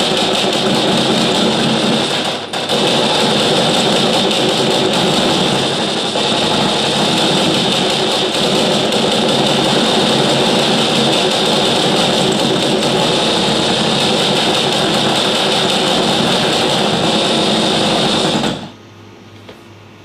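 A layered sound effect of about ten machine guns firing at the same time: dense, unbroken automatic fire with a brief dip about two and a half seconds in. It cuts off about a second and a half before the end.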